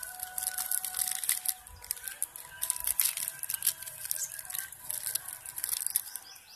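Plastic spice packet crinkling and crackling in the hands as it is torn open and then squeezed to pour salt out, a dense run of irregular crackles.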